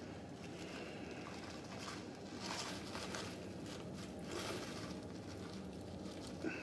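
Faint rustling of a plastic packet and a soft patter of desiccated coconut being shaken out onto a jam-topped sponge cake.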